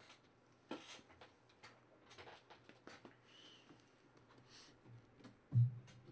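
Trading-card boxes and packs being handled on a table: scattered soft clicks and light crinkles, then a single dull thump about five and a half seconds in.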